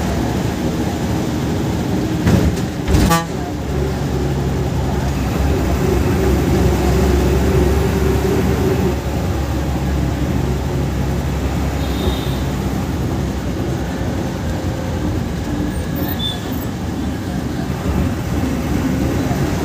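Bus engine and drivetrain running steadily as heard from the driver's cabin while the bus drives, with two sharp knocks about two and three seconds in.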